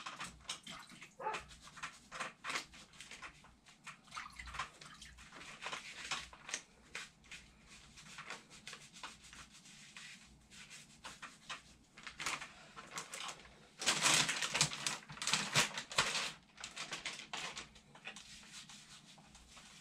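Nitrile-gloved hands rubbing and pressing a wet, setting fiberglass-type cast sock against the leg to mold it: a run of short rubbing strokes, heavier and louder for a couple of seconds about fourteen seconds in.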